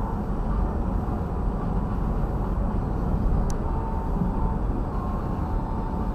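Steady low road and engine rumble of a smart fortwo heard from inside its cabin while driving, with one brief sharp click about halfway through.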